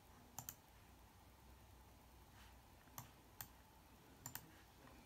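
Near silence broken by about five sharp, isolated clicks from a laptop being operated: one near the start, two about three seconds in, and a quick pair a second later.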